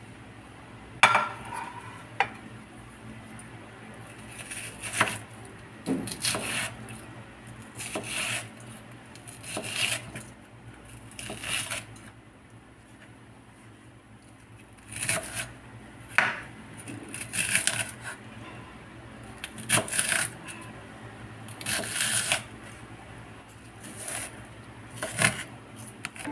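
Chef's knife cutting an onion on a wooden cutting board: short knocks of the blade on the board, singly and in small groups every second or two, with a quieter spell about halfway through.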